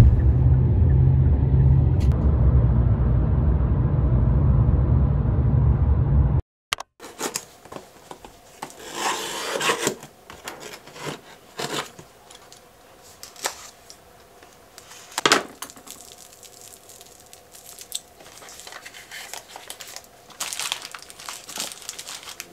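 Steady low road rumble heard from inside a moving car, cut off abruptly. Then packaging handling: a utility knife slitting the seal of a small cardboard box, with paper tearing and scraping in short swells and light clicks and taps as the boxes are handled.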